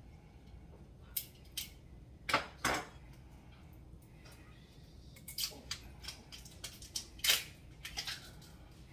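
Scattered short clicks, scrapes and light metal clinks of someone working at opening a corked bottle of red wine. The loudest are a pair about two and a half seconds in and one about seven seconds in.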